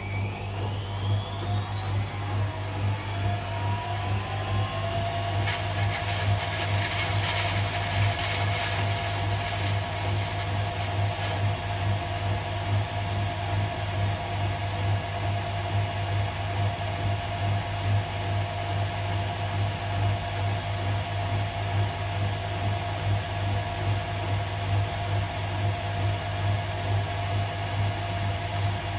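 Hotpoint Aquarius WMA37 washing machine on a spin cycle: the motor's whine rises over the first few seconds as the drum speeds up, then holds one steady pitch over a strong low hum that pulses evenly with the drum's turning.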